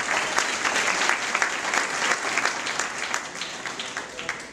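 Crowd applauding: many hands clapping together, easing off a little near the end.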